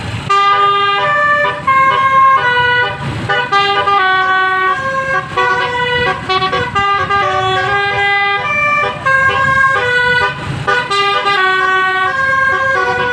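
Bus basuri musical horn playing a tune of telolet notes: a quick run of held horn notes that change pitch every fraction of a second, with short breaks.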